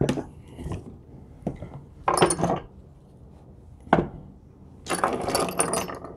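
Tools being handled on a wooden workbench: a few separate knocks and clicks and a short clatter, then, near the end, a longer jingling clatter of loose steel countersink drill bits being spread across a wooden board.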